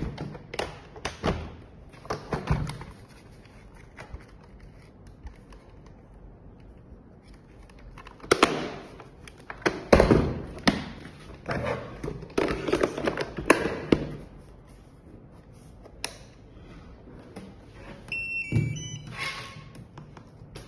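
Hard plastic clicks, knocks and thunks in clusters, from the parts of a robot vacuum being handled and snapped together. Near the end comes a short electronic tune of a few stepped notes.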